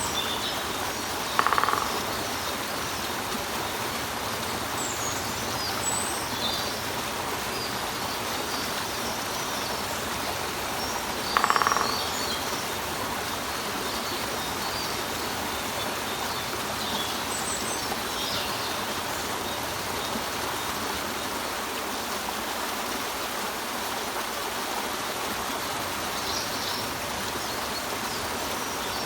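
Water splashing steadily over a rock. A woodpecker gives two short, loud calls about ten seconds apart, over faint high chirps of small birds.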